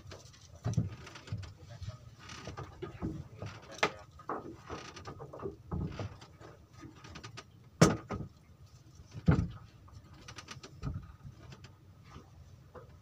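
Scattered knocks and clunks of gear and boards being handled on a wooden boat's deck and hatch, with two sharp knocks, about a second and a half apart, near the middle.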